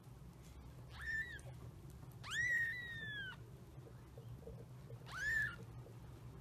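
Newborn kittens mewing: three thin, high-pitched mews, the middle one the longest and slowly falling in pitch.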